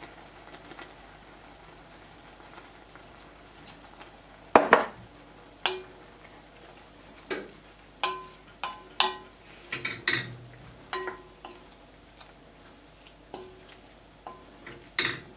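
Wooden spoon stirring spinach and mushrooms in an enamelled cast-iron pot: quiet at first, then from about four seconds in a dozen or so irregular knocks of the spoon against the pot, the first the loudest, several with a short ring.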